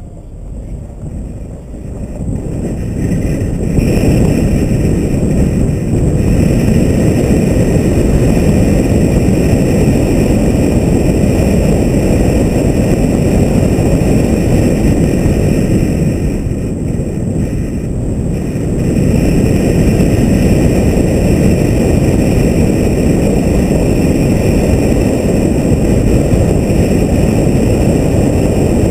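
Car driving on a paved road, heard as steady road and wind rush at a hood-mounted action camera. The noise builds over the first few seconds as the car pulls away and gathers speed, eases off briefly past the middle, then comes back up.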